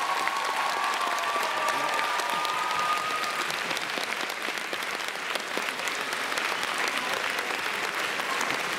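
Audience applauding steadily, a dense clatter of many hands clapping after a dance number's music ends.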